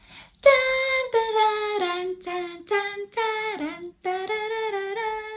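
A woman singing a short unaccompanied tune: a string of held notes in several short phrases, the melody stepping downward, with brief breaks between the phrases.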